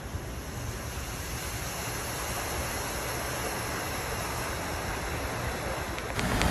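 Steady rushing hiss of heavy hurricane rain and wind over a flooded street, with a low rumble underneath. About six seconds in it changes abruptly to a louder, closer noise with a few clicks.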